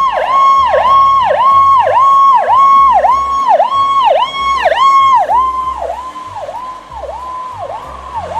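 Ambulance siren sound: a high tone that repeatedly swoops down and back up, about three dips every two seconds, getting quieter after about five seconds.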